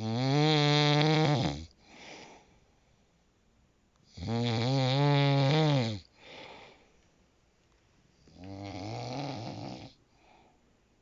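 A person snoring: three loud snores with a clear pitch, about four seconds apart, each followed by a brief, fainter breath. The third snore is softer than the first two.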